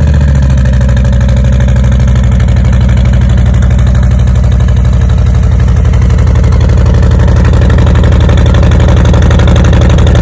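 Harley-Davidson Softail's Milwaukee-Eight V-twin idling steadily through Rinehart 3.5-inch slip-on mufflers, a loud, even exhaust beat.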